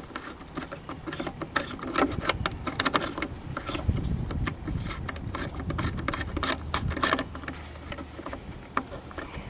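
Scattered small clicks, taps and rattles of hand tools, bolts and plastic trim being handled at a car's tail light. A low rumble in the background swells about four seconds in.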